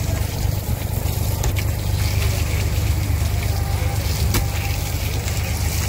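A deck hose spraying water onto the boat deck and the tuna lying on it, over a steady low rumble, with two sharp knocks about a second and a half in and again past four seconds.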